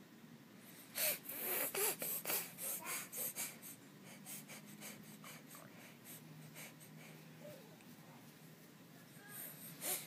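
A baby sniffling: a quick run of short, sharp sniffs through the nose, about three a second, for a couple of seconds, then fainter sniffs, and two more near the end.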